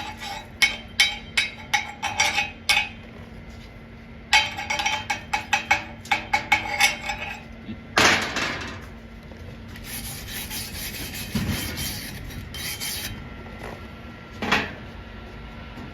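Slag being cleaned off a freshly run flux-core weld cap: two runs of rapid metal-on-metal scraping and clinking strokes, then one heavier scrape and a few seconds of softer hissing scrape.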